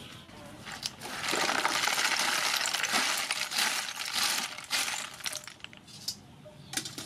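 Cooked snails and their hot cooking water poured from a pot into a bamboo basket in a metal basin: a rush of clattering, clinking shells and splashing water from about a second in until about five seconds, then a few scattered clicks as the shells settle.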